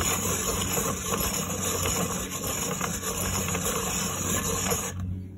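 Pencil sharpener grinding a Faber-Castell Polychromos coloured pencil, a steady rasping noise that stops abruptly near the end.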